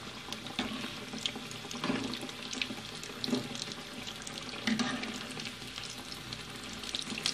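Kachoris deep-frying in hot oil on low heat: a steady sizzle and crackle, with a slotted metal spoon stirring through the oil in the steel pan and a few slightly louder moments.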